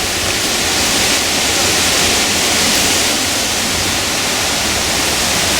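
Steady, loud hiss of heavy rain falling around the microphone.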